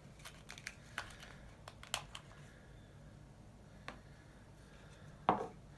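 Scattered light plastic clicks and taps as the used K-cup is taken out of a Presto MyJo single-cup coffee press.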